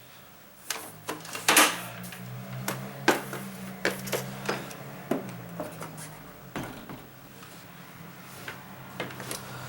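Irregular knocks and clatters of things being handled and moved about, over a steady low hum that comes and goes.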